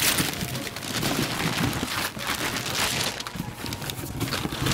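Christmas wrapping paper being torn and rustled off gift boxes, with cardboard box flaps handled, in a run of irregular crackling and ripping noises.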